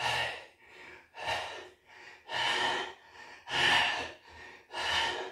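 A man breathing hard from exertion, strong sharp exhalations about once every 1.2 seconds with quieter inhalations between them.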